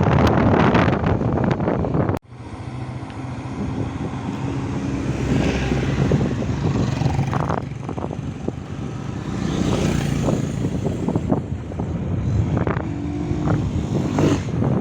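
Motor vehicle running along a road, with wind buffeting the microphone for the first two seconds. After a sudden cut it settles into a steadier low engine hum with road and wind noise.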